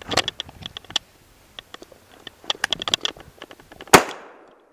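Dry leaves crunching and crackling underfoot with quick movement, then a single blast from a Franchi Affinity 20-gauge semi-automatic shotgun just before four seconds in, the loudest sound, ringing off briefly.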